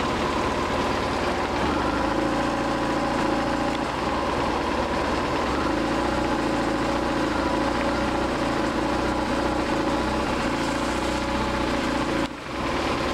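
BMW R1150RT's boxer twin engine idling steadily with the cold-start lever on, the choke cable freshly adjusted to give a higher fast idle for a cold start.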